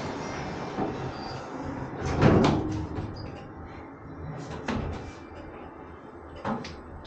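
Otis freight elevator car in service: a loud clunk about two seconds in and two sharper knocks later, over a steady low running hum of the lift machinery.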